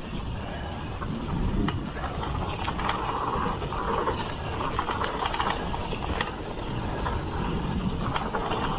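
Ragley Big Wig mountain bike descending a rough dirt singletrack at speed: tyres rumbling over the ground, with the chain and other parts rattling and clicking over the bumps.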